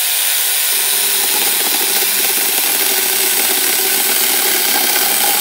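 Electric grinder fitted with a chainsaw bar-and-chain attachment, running at steady speed while sawing through a piece of wood.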